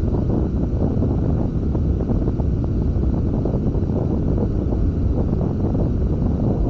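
Wind buffeting the 360 camera's microphone aboard a sailing beach catamaran: a steady low rumble that does not let up.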